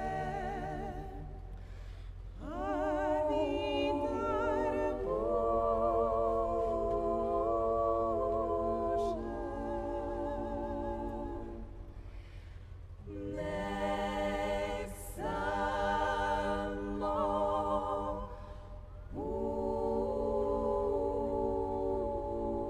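An a cappella vocal group singing long held chords with vibrato and no clear words, in three drawn-out phrases separated by brief dips.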